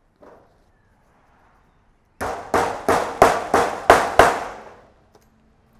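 Claw hammer driving a nail through sisalation foil into a timber batten: seven quick blows, about three a second, starting about two seconds in.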